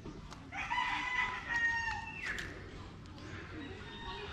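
A rooster crowing once: one long pitched call of several segments, starting about half a second in and falling away after about a second and a half.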